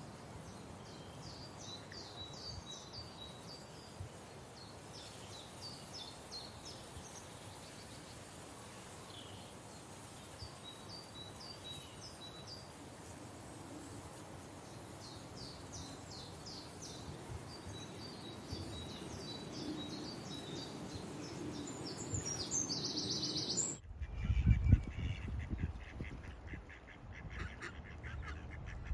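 Faint outdoor background with clusters of short, high bird chirps for most of the stretch. Near the end it cuts abruptly to much louder, repeated duck quacking.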